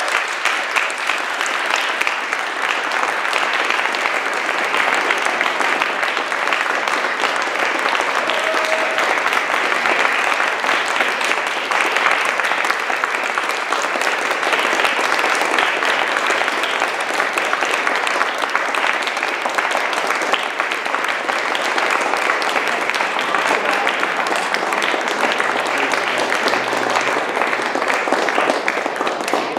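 Audience applauding: dense, steady clapping from many hands that holds at an even level throughout.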